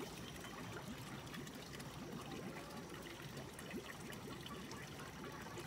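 Water trickling and bubbling steadily.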